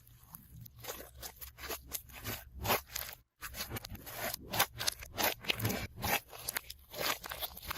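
Slime being handled, giving a fast, irregular string of sticky crackles, clicks and pops. The sound cuts out briefly a little past three seconds in.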